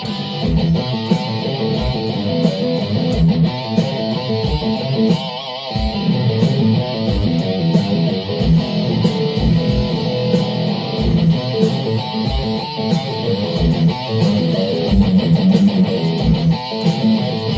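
Guitar played as an improvised solo: a stream of plucked notes with a wavering held note about five seconds in, over a low thump about once a second.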